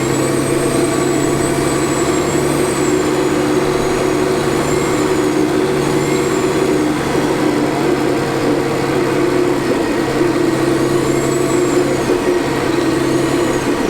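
Cummins ISL inline-six diesel engine of a 2004 New Flyer D40LF transit bus running, with a steady drone and a thin, high turbocharger whine that rises and falls several times as the engine load changes.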